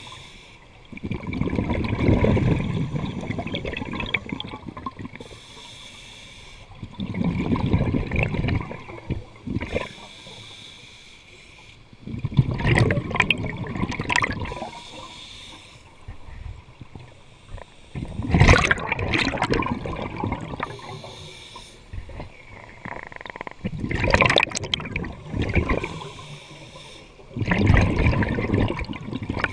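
Scuba diver breathing through a regulator underwater: six rushes of exhaled bubbles about every five seconds, with the quieter hiss of each inhalation in between.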